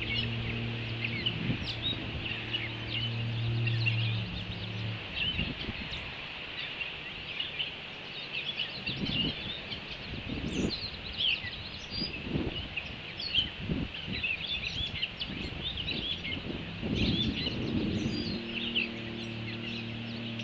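Ospreys giving short, high chirping calls, many times over, against outdoor background noise. A low steady drone fades out about five seconds in and comes back near the end, and a few low thumps come in the middle.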